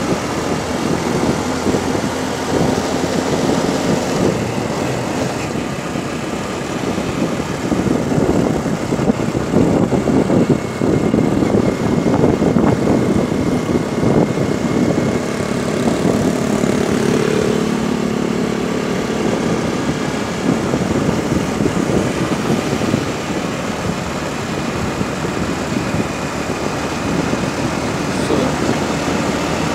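Strong wind buffeting the microphone of a moving motorcycle, a loud steady rumble with a constant flutter, the motorcycle engine running underneath.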